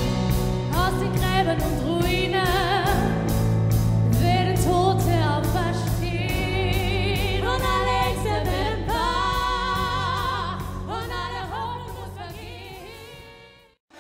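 Live orchestral film music with a high solo voice singing long notes with wide vibrato over sustained low orchestral notes. The music fades away over the last few seconds.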